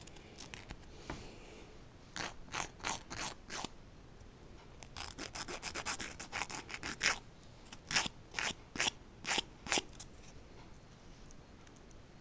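Emery board nail file rasping against the edge of a fingernail, filing off the overhanging excess of a stick-on nail strip. It goes in short strokes in three runs: about five strokes, then a quicker run, then about five more near the end.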